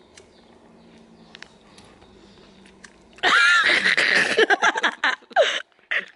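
After about three quiet seconds with a faint low hum, a loud rustling and scraping noise on the microphone starts suddenly and lasts about two and a half seconds. A woman's laughter is mixed into it.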